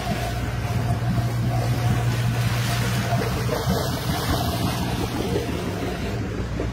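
Boat's engine running with a steady low hum, strongest in the first few seconds, over a wash of water noise.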